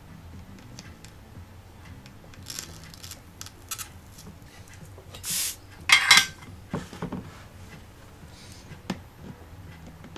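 Small hand tools and thin wire being handled while soldering LED strips: scattered light metallic clicks and taps, with a few short scratchy rustles, the loudest about six seconds in.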